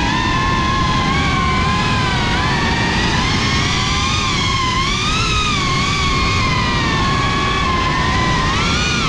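FPV quadcopter's electric motors and propellers whining, heard from the onboard camera. The pitch rises and falls continually with the throttle, over a steady low rush of wind and prop wash.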